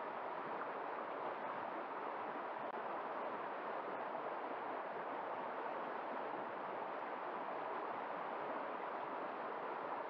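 Shallow rocky stream running fast over stones in small rapids: a steady, even rush of water.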